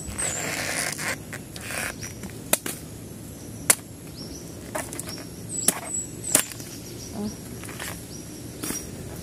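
A bolo knife chopping into a banana heart (banana flower): rustling handling, then four sharp cracks spread over a few seconds as the blade cuts the tough bracts. A bird gives short high chirps a few times.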